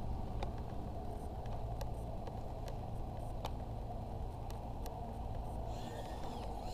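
Steady low rumble with a few faint clicks. Near the end comes a thin whine that rises and falls in pitch: the Eachine E010 micro quadcopter's tiny motors spinning up for takeoff.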